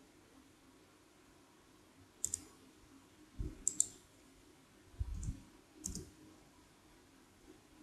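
Clicks of a computer keyboard and mouse during data entry: about half a dozen sharp clicks in four groups, some in quick pairs, with dull low knocks under them, starting about two seconds in and ending about six seconds in.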